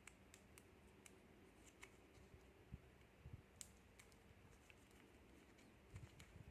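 Near silence with faint, scattered clicks and a few soft knocks: small plastic snack packets being handled and picked at by hand.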